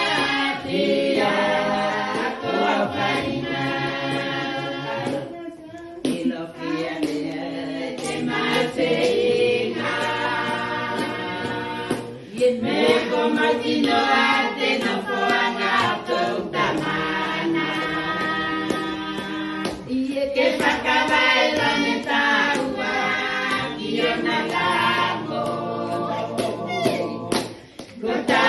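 A group of people singing together, many voices in long phrases with a few brief breaks between them.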